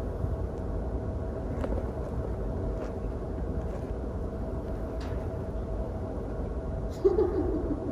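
Theatre auditorium sound from a phone in the audience rows: a steady low rumble and hum with a few faint ticks, and a short louder sound about seven seconds in.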